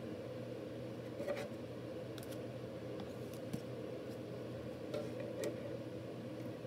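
Rigid plastic card holders handled and set down on a plastic tray: a few faint, scattered clicks and taps over a steady low room hum.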